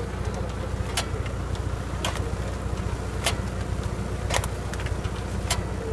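Tractor engine running steadily as it pulls a two-row Checchi & Magli Wolf transplanter, with sharp regular clicks about once a second from the planter as it sets seedlings into plastic mulch.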